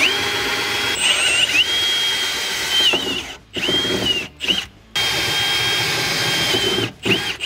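Milwaukee cordless drill with a long bit boring through the car's steel floor pan, here two layers of panel with seam sealer between them. The motor whines steadily for about three seconds, then stops and starts in short trigger pulses, with a longer run before a last few quick pulses near the end.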